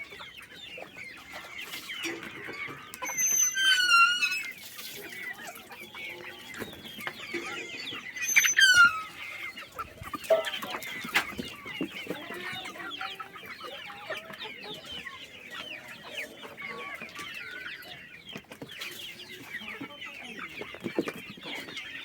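A flock of Kadaknath chickens clucking and calling continuously, many birds at once. Two louder, falling squawks stand out about four and eight and a half seconds in.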